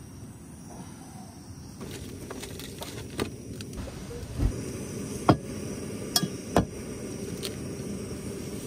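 Sharp clinks and knocks of metal camp cookware being handled (a pot on a canister stove, and mugs), a few at a time, over a steady low rush that starts about two seconds in.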